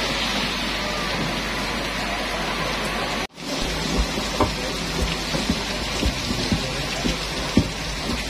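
Heavy rain falling steadily, a dense hiss. About three seconds in the sound drops out for an instant, and after that short dull thumps come roughly twice a second over the rain.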